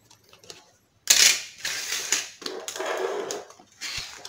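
Tools, a cut rubber gasket and stiff plastic sheets being handled and picked up off a tiled floor: a sudden clatter about a second in, then rustling and scraping, with a short knock near the end.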